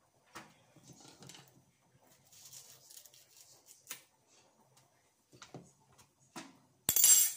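Seeds being scraped out of a butternut squash by hand: soft, scattered scrapes and ticks, then a brief loud noisy burst near the end.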